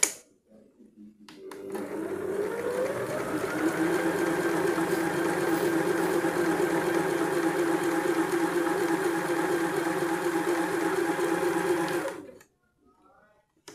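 A sharp click, then a Singer SH-660 home sewing machine starts up, speeds up over a second or so and stitches at a steady fast rate. It stops near the end. It is sewing a test seam with the upper thread tension turned up to 8–9.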